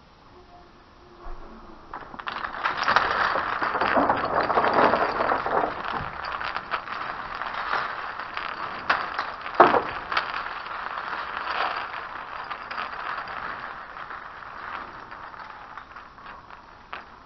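Strands of a beaded curtain rattling, a dense clatter of bead clicks. It builds about two seconds in, is loudest for the next few seconds with one sharper clack near the middle, and slowly dies away.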